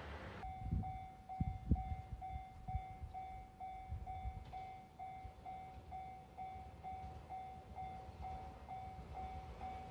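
Japanese railway level crossing warning bell ringing: an electronic ding repeating about twice a second. A few low thumps sound under it in the first couple of seconds.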